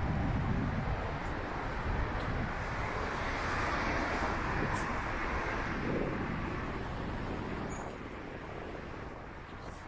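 Steady vehicle or traffic noise: a low rumble with a hiss that swells in the middle and eases off near the end.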